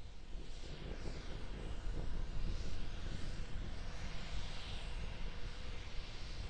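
Steady rumble of a Starship prototype's Raptor rocket engine in flight, heard from the ground as a distant roar with a slowly wavering hiss on top.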